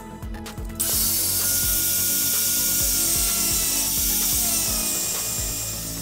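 Electric angle grinder with a thin cut-off disc cutting into a metal seat belt buckle. It starts about a second in as a loud, hissing grind with a faint whine that drops slightly in pitch, and it eases off near the end.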